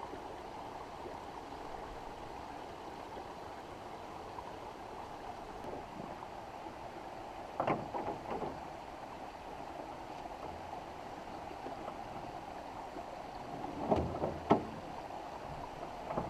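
Water running and trickling through a beaver dam on a creek, a steady rushing. A few short knocks come about eight seconds in and again near the end.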